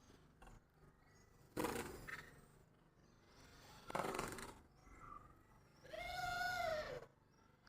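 An animal calling: two short breathy calls, then a longer call about a second long whose pitch rises and falls.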